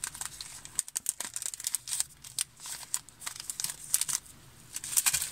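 Packaging crinkling and rustling as it is handled: many quick, irregular crackles.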